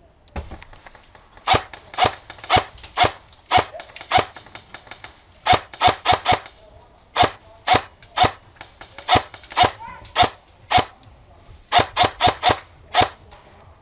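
Ares Amoeba AM-013 electric airsoft rifle firing single shots in semi-auto, about twenty sharp cracks in quick irregular strings.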